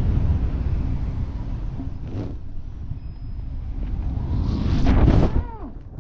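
Rushing wind noise from a wingsuit flight, easing off over the first few seconds, then swelling into a loud whoosh about five seconds in whose pitch falls away as it passes.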